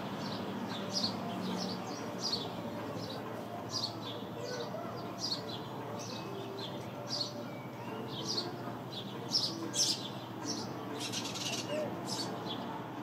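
House sparrows chirping: a steady string of short, high chirps, about one or two a second, thickening into a denser run of chirps near the end.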